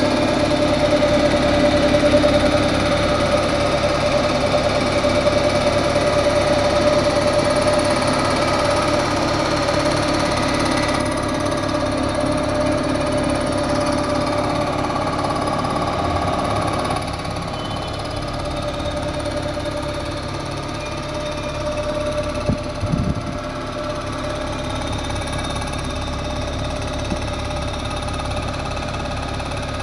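Machine facing (resurfacing) a Volkswagen Polo petrol cylinder head, running steadily with a continuous grinding hum. It drops in level about 11 seconds in and again about 17 seconds in, with a short clatter a little past the middle.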